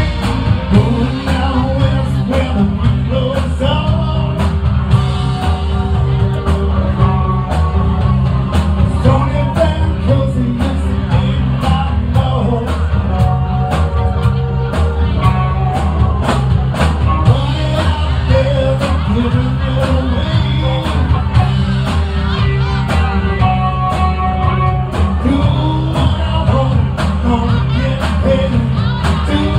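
Live band playing in a bar: a singer over a steady drum beat and a heavy, repeating bass line, recorded loud and bass-heavy.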